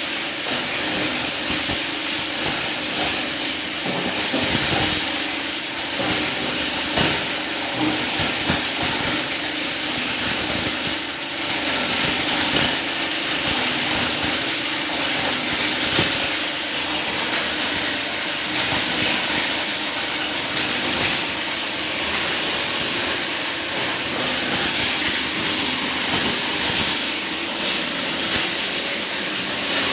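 20-inch heavy-duty plastic scrap grinder running and chopping plastic scrap: a loud, steady whooshing noise with many irregular cracks and knocks from the pieces being cut.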